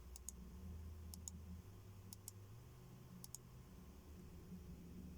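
Faint low hum from a bass shaker driven with a test tone. The tone steps up in pitch about once a second, and each step comes just after a pair of sharp clicks.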